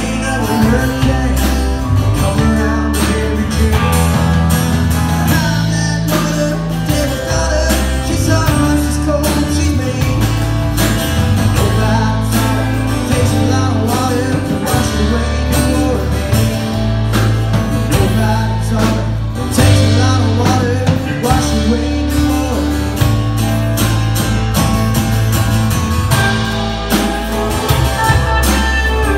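A live country-rock band playing at full volume: drum kit keeping a steady beat under a bass line, electric guitars and a strummed acoustic guitar.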